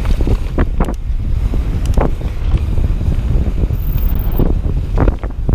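Wind buffeting the microphone and tyres rolling over dirt on a fast mountain-bike descent, with scattered sharp clicks and knocks from the Knolly Warden carbon mountain bike rattling over the rough trail.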